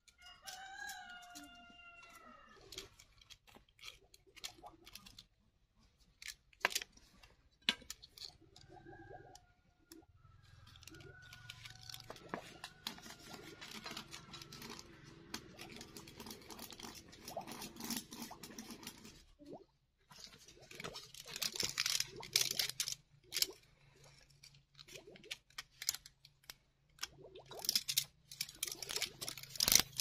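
A rooster crows at the start, and more fowl calls follow faintly around ten seconds in. Scattered crunches, scrapes and knocks on gritty earth run throughout and are busiest in the last ten seconds.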